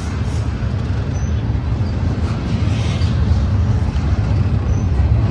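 Double-stack intermodal container train rolling past close by: a loud, steady low rumble from the well cars' wheels on the rails.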